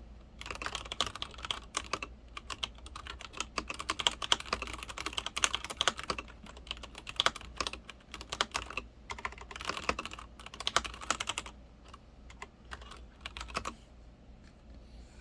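Typing on a Leopold FC900R PD mechanical keyboard with linear Cherry MX Red switches: fast, irregular key clacks with brief pauses. The keystrokes thin out to a few scattered presses about twelve seconds in, then stop.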